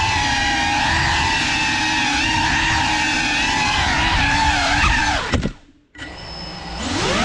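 GEPRC Cinelog35 cinewhoop's brushless motors and ducted props whining, the pitch wavering with throttle. About five seconds in, the whine drops in pitch and cuts out almost completely for half a second, then spools back up with a rising pitch as the throttle comes back.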